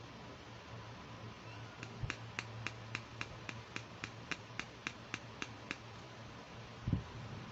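A steady run of about fifteen light, sharp clicks, nearly four a second, from a fingernail tapping a hard plastic toy kidney dish. Near the end comes one dull handling thump.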